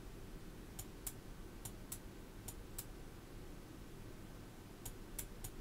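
Faint light clicks over quiet room tone: about ten short, sharp ticks, mostly in pairs, a cluster in the first three seconds and another near the end.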